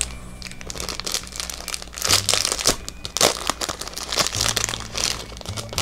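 Clear plastic bag crinkling in the hands as it is handled and worked open, with irregular crackles that are loudest about two to three seconds in.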